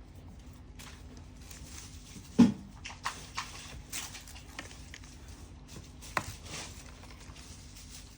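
Packaging being handled and unwrapped: crinkly rustling with scattered small clicks, and one dull knock about two and a half seconds in, the loudest sound.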